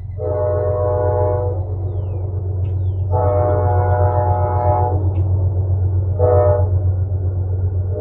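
Train air horn sounding the long-long-short-long pattern, two long blasts, a short one and a final long one starting near the end, which is the standard signal for a grade crossing. A steady low rumble runs underneath.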